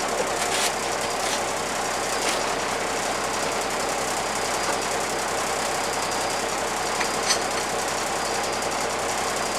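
A bus's diesel engine idling steadily, with a few light clicks on top.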